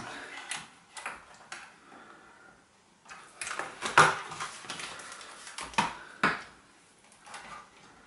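Handling noises as multimeter test leads are fitted to terminals inside an opened electric shower unit: irregular clicks and knocks of plastic and metal, the sharpest about four seconds in, with two more near six seconds.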